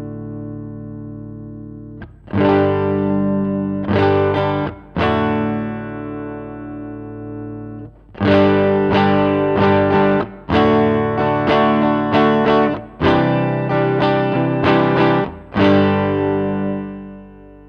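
Fender Stratocaster electric guitar played through a Line 6 Helix amp and cabinet model. A few strummed chords are left to ring, then a quicker run of chords comes from about eight seconds in and rings out near the end.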